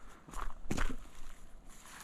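Footsteps: a couple of short steps, the first shortly after the start and the second just under a second in.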